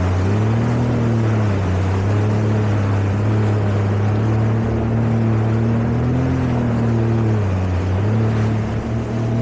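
Jet ski engine running at cruising speed. Its pitch stays steady apart from a slight rise and dip about half a second in and again near six seconds, over a steady rushing noise.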